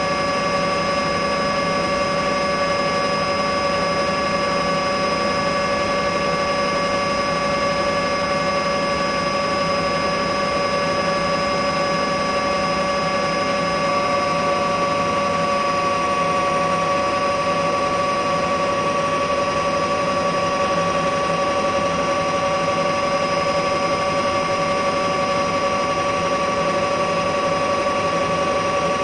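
Bell OH-58 helicopter's turboshaft engine and rotors running steadily, a constant high turbine whine over an even rush of noise.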